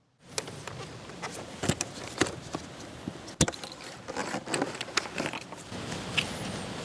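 A string of irregular sharp clicks and knocks over a steady background hiss, starting a moment in, with the loudest knock about halfway through.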